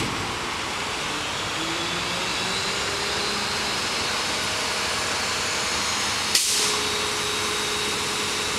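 Garbage truck running: a steady mechanical noise with a faint whine, and one short knock about six and a half seconds in.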